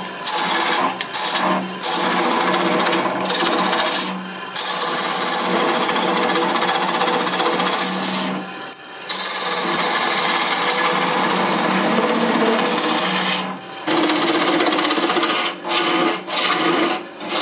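Turning gouge cutting into a spinning block of wood on a wood lathe, roughing it to shape: a continuous scraping hiss in long passes, broken by short pauses when the tool comes off the wood, over a low steady hum.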